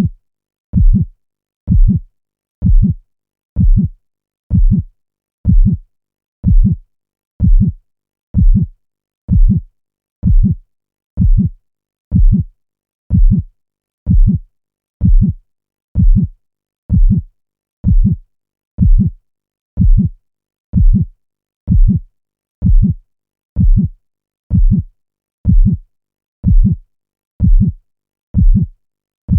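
Looped heartbeat sound effect: low thumps at a steady pace of about one a second, with silence between beats.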